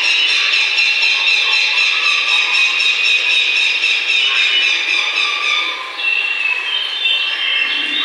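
Recording of forest sounds: a dense chorus of birdsong with many overlapping high trills, thinning about six seconds in as other, lower calls come in.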